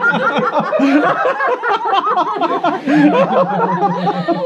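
Several people laughing close by, overlapping chuckles and giggles.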